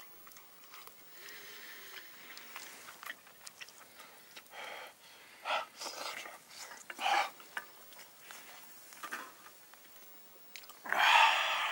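A person eating very hot food: several short breathy blowing and slurping sounds in the middle, then a louder breathy burst near the end.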